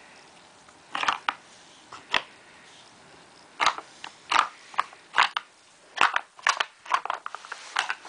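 Plastic locking pegs and drawers of a wooden dog puzzle board clacking and knocking as it is handled and set up: a string of sharp clicks, sparse at first and coming faster near the end.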